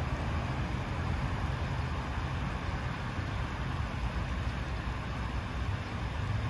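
Steady splashing of a fountain's bubbling water jet falling into a shallow pool, over a steady low rumble.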